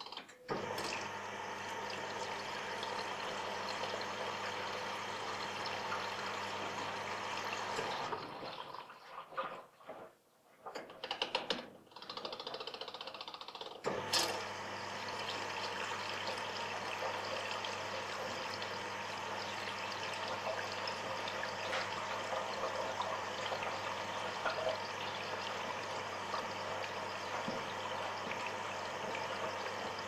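Washing machine taking in water: a steady rush of water with a low hum. About a third of the way in it drops away for several seconds, with a few uneven splashes, then comes back on with a sharp click.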